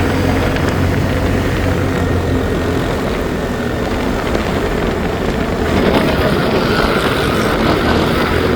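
ATV engine running steadily while riding, with a steady low drone, getting a little louder about six seconds in.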